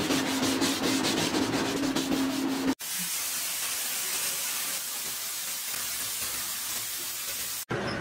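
Hands rubbing and scraping clay pressed into a toilet-pan mould, a rapid rhythmic rasp over a steady hum. After a cut about three seconds in, a steady even hiss runs for about five seconds.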